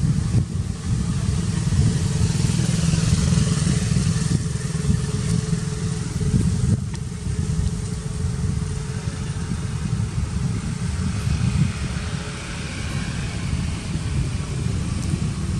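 Steady low rumble of motor traffic, with a faint steady hum above it.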